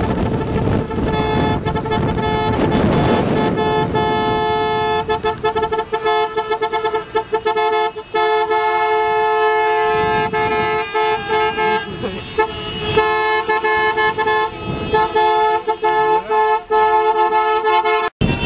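Several car horns honking almost without a break, two or more held tones at once, over the noise of cars on the road.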